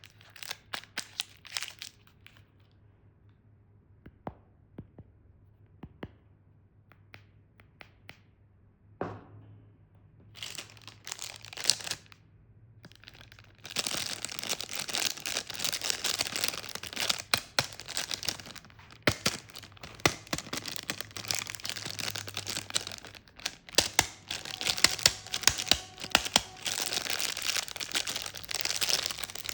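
Plastic candy wrappers being crinkled and torn open. Scattered crackles and clicks at first, then dense, continuous crinkling from about ten seconds in, with a short pause just after.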